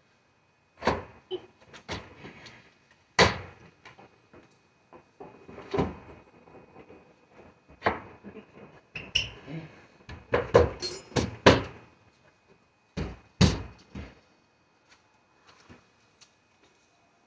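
Newly installed wooden door being swung and pushed shut against its frame, giving a series of irregular knocks and thumps, loudest near the middle and just after two thirds of the way through.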